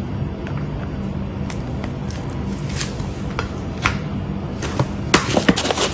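Scattered light clicks and taps of kitchen utensils as ketchup is added to a bowl of mayonnaise for a sauce, coming quicker in the last second or so, over a steady low hum.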